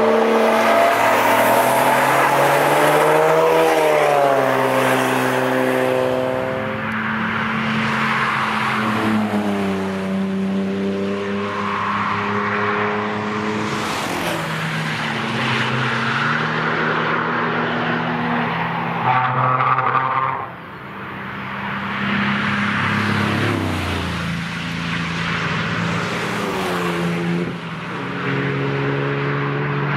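Several sports cars driving past at speed one after another, their engine notes rising and falling in pitch, over tyre and road noise. There is a brief dip in loudness about twenty seconds in.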